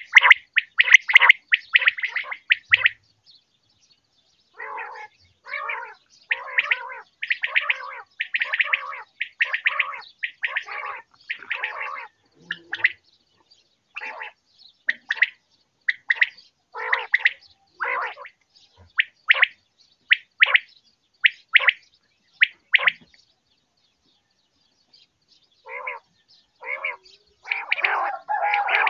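Common quail calling: runs of short, sharp notes repeated rapidly in clusters, some rougher and lower-pitched, with brief pauses about three seconds in and again around twenty-three seconds in.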